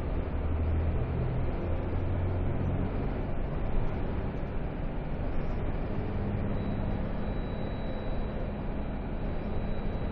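Engine and road noise of a moving vehicle heard from inside its cabin: a steady low rumble.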